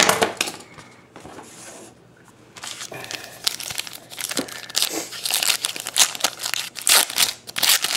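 Foil trading-card pack crinkling as it is handled and torn open. It is fairly quiet at first, then from about three seconds in comes a run of quick, irregular crackles and tears that grows louder toward the end.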